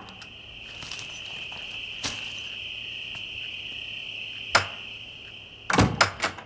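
Crickets chirring steadily at night, a constant high-pitched chirr, with a few sharp knocks: one about two seconds in, a louder one at about four and a half seconds, and a quick cluster near the end.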